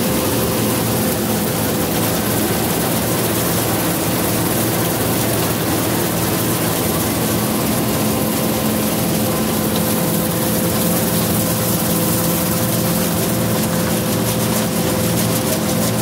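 Combine harvester running steadily while harvesting soybeans: an even machinery drone with a constant hum, heard from the cab.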